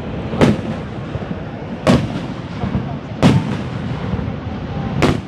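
Fireworks shells bursting in the air: four sharp bangs about one and a half seconds apart, each with a short echoing tail, over a steady rushing background.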